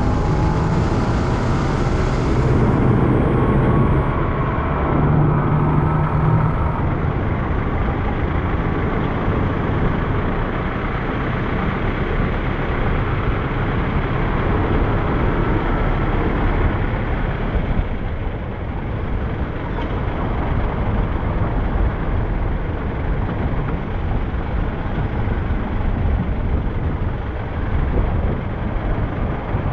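Steady traffic noise heard from a vehicle moving along a town road: a continuous low rumble of engine, tyres and wind, with motor scooters and other traffic close by. A low engine drone stands out over the first several seconds.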